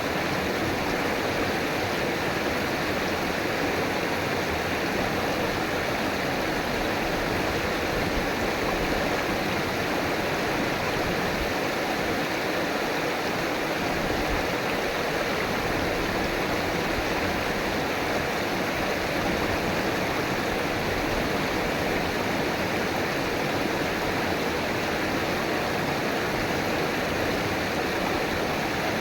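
River water flowing and rushing over rocks, a steady, even rush with no pauses.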